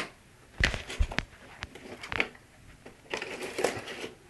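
Cardboard packaging being handled and two hard-cased units lifted out of it: a few sharp knocks and deep thumps in the first two seconds, then about a second of cardboard scraping and rustling near the end.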